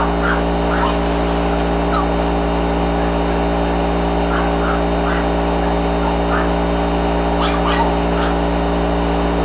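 Small white puppy giving short, high whimpers and yips several times, in clusters, over a loud steady mechanical hum.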